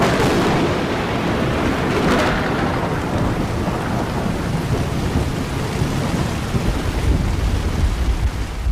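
Heavy rain falling steadily while thunder rumbles, with louder surges at the start and about two seconds in and a deep rolling rumble building late.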